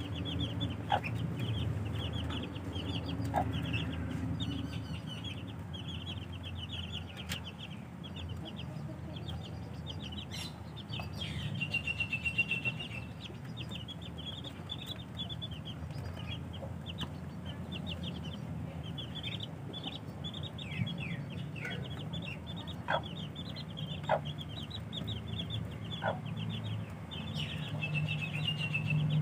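A brood of baby chicks peeping continuously: many rapid, short, high-pitched chirps overlapping, with a low steady hum underneath.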